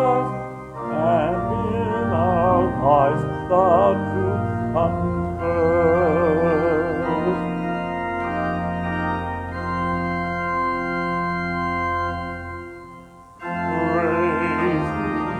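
Organ accompanying a hymn, with voices singing with vibrato over held chords. The singing fades about halfway while the organ sustains a chord. Near the end the music breaks off briefly, then organ and singing start again on the next phrase.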